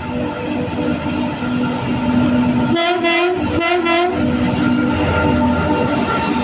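2TE116 twin-section diesel locomotive working up a grade with a tank train: steady engine noise under a high whistle from its turbochargers. About three seconds in, its horn sounds two short blasts, a greeting from the crew.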